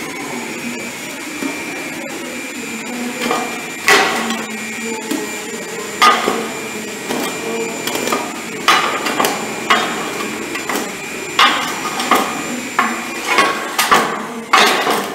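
Steel shovel scraping and knocking against a paver machine's steel mould as concrete mix is worked in, in irregular strikes that come closer together near the end. Under it runs a steady hum from the machine's 220-volt electric vibrator motor.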